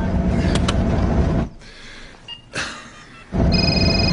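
Steady engine and road rumble inside a moving vehicle's cab. It drops away sharply for about two seconds and comes back, and just after it returns a car phone in its cradle rings with a short electronic ring of about a second.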